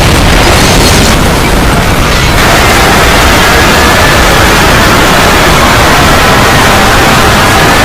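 Cartoon explosion sound effect: a loud, sustained blast of rumbling noise that keeps going without a break, with faint wavering tones coming in after about two and a half seconds.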